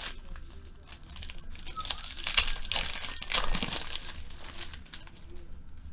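Foil wrapper of a Panini Crown Royale football card pack crinkling and tearing as it is opened by hand. The rustling comes in irregular bursts and is busiest in the middle.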